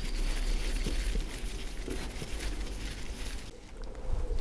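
Faint scattered clicks of a driver turning a small screw into a metal travel stop, over a low steady hum.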